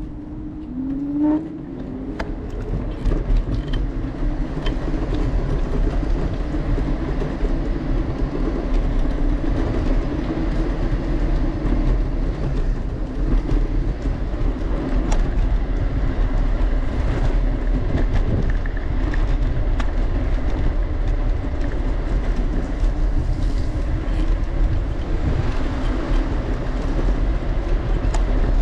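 Steady rumbling noise of moving along city streets, heavy in the bass, growing louder over the first few seconds and then holding. A short rising tone sounds about a second in.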